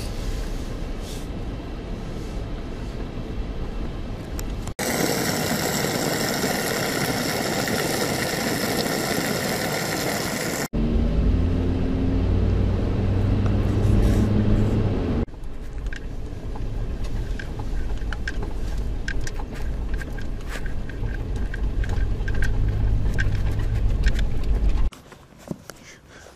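Car engine and road noise, in several clips that cut abruptly from one to the next; one stretch carries a loud even hiss and another a steady low engine hum. Near the end it drops suddenly to a much quieter sound.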